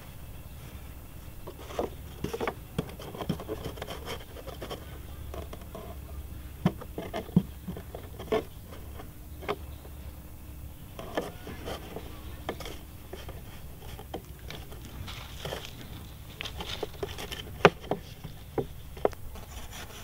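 A hand tool scraping and chopping into dry sandy soil, with soil scooped out by hand, in irregular scrapes and short knocks.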